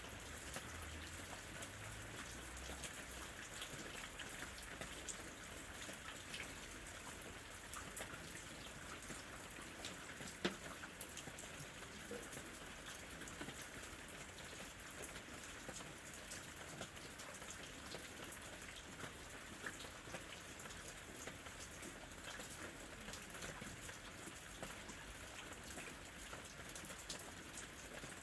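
Light rain falling steadily, a soft even hiss with scattered individual drops ticking on a surface, one drop louder about ten seconds in.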